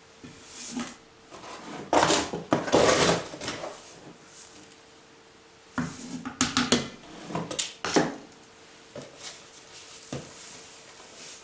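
Powdered ore and sodium hydroxide mixture scooped from a plastic tub with a plastic scoop and poured into a stainless steel cylinder. A loud grainy rush of pouring powder comes about two seconds in, then a run of sharp knocks and rattles of the scoop and tub against the steel rim around six to eight seconds in.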